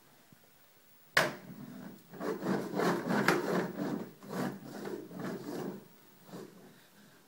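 A plastic toy truck knocked down onto a wooden TV stand about a second in, then pushed along the wood in several strokes, its wheels rumbling and scraping on the surface.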